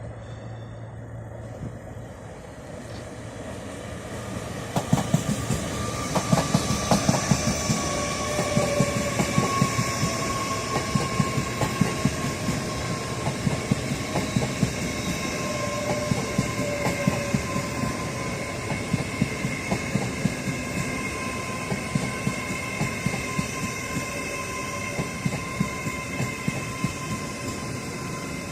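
A train running through a station, its wheels clicking and knocking over the rail joints with a steady high whine or squeal from the wheels. The sound swells about four seconds in and keeps up the rapid clatter to the end.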